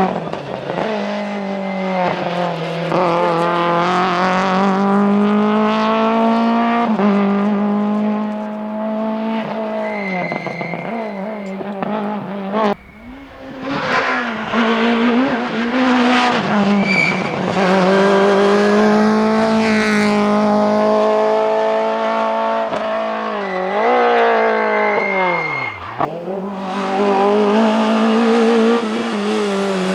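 Peugeot 106 rally car's four-cylinder engine run hard at high revs, the pitch dropping and climbing again on several gear changes and lifts, with tyres squealing through corners. Near the end the engine note dips sharply and a different rally engine takes over.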